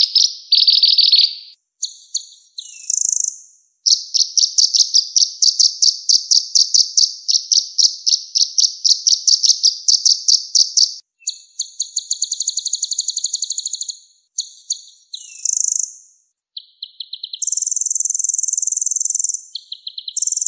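Konin songbird singing fast, rolling trills: long runs of rapid repeated high notes, then a quicker, higher trill, short sharp chirps, and a steady buzzy trill near the end.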